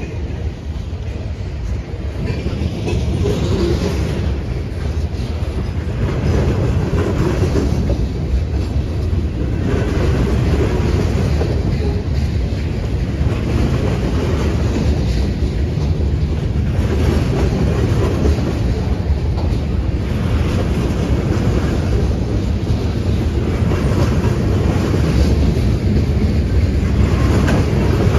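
Freight train cars rolling past: centerbeam flatcars loaded with lumber, then gondolas. Their steel wheels make a steady rumble on the rail, with a repeated clickety-clack that swells every few seconds as each set of wheels goes by.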